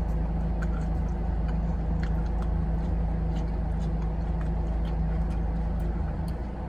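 Steady low hum of an idling car engine heard from inside the cabin, with a constant droning tone and a few faint small clicks from eating.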